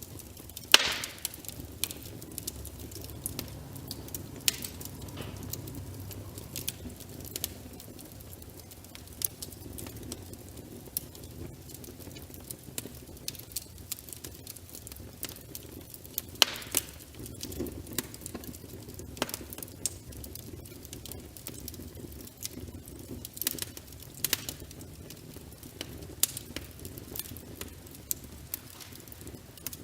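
Wood fire in a fireplace crackling, with irregular sharp pops over a low, steady sound of burning; the loudest pops come about a second in and again about halfway through.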